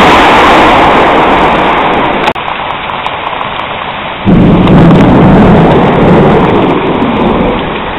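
Heavy rain mixed with hail pelting down, a loud, dense hiss of impacts. It drops suddenly a little past two seconds in, then comes back loud about four seconds in with a deeper rumble under it.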